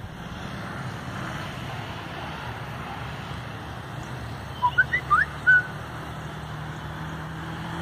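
Distant ATV engine running with a steady low drone. About five seconds in, a quick run of five short, high rising chirps, the loudest sounds here.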